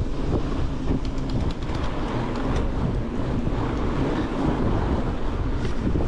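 Wind buffeting the microphone of a camera riding along on a fat bike, a steady low rumble with the bike's rolling noise on snowy trail, and a few light clicks about a second to three seconds in.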